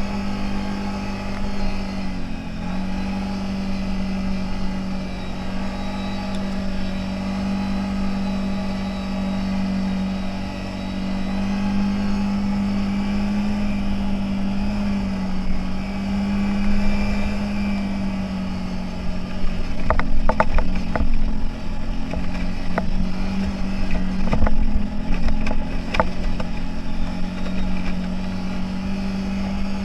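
CFMOTO 1000's engine running at a steady speed under way, its note dipping briefly now and then. A run of sharp knocks and rattles comes about two-thirds of the way through.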